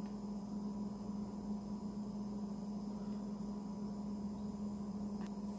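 Steady low electrical hum with a faint steady high whine above it, unchanging throughout; a faint tick near the end.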